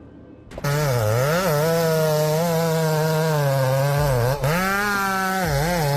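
Chainsaw running at high revs and cutting wood. It starts about half a second in, and its pitch dips and recovers again and again as the chain bites, with a short drop near the middle.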